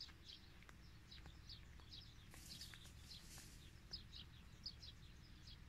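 Faint birds chirping, many short high calls repeating over a low rumble, with a brief hiss about two and a half seconds in.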